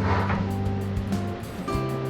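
Background music with held bass notes that change every second or so and a light regular tick.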